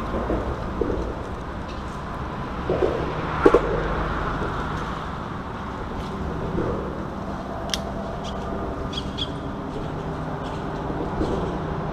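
A few light clicks and taps from handling a spinning rod and reel, the sharpest about three and a half seconds in, over a steady outdoor rush with a faint low hum.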